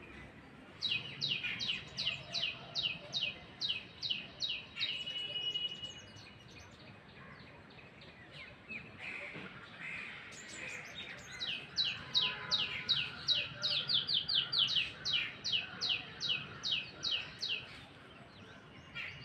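A bird calling a long series of sharp, downward-sliding notes at about three a second, in two runs; the second, longer run quickens briefly partway through.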